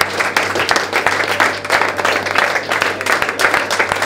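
A group of people applauding, many hands clapping at once.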